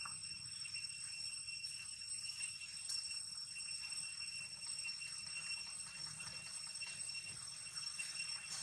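Steady high-pitched drone of insects singing, with a few faint ticks.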